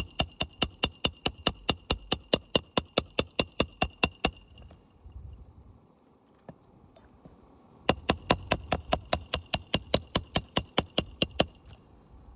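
Rapid metal-on-metal hammer taps, about five a second, each with a short ringing tone, in two runs of several seconds with a pause between.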